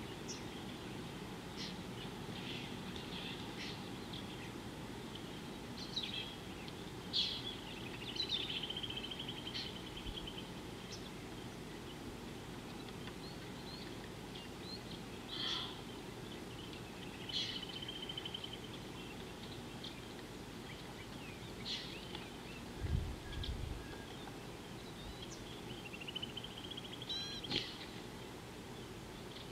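Small birds calling: scattered high chirps and several short buzzy trills, over a steady low background hum of outdoor noise. A single dull low thump comes about three quarters of the way through.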